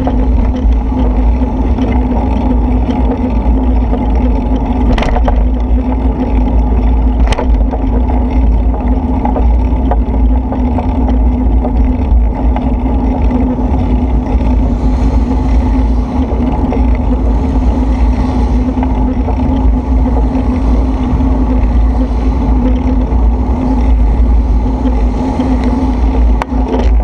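Wind buffeting the microphone of a camera moving along a road in the rain: a steady heavy rumble with a constant hum, and a few brief clicks, two of them about five and seven seconds in.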